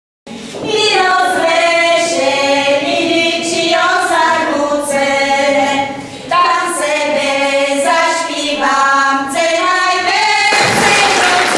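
A small group of women singing a Slovak folk song unaccompanied in several voices, in sustained phrases with a brief break about six seconds in; near the end the singing gives way to crowd noise.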